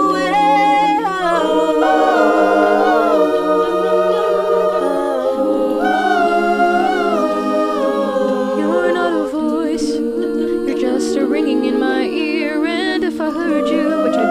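A small group of voices singing a cappella in several parts, with a steady low held note beneath the moving upper voices.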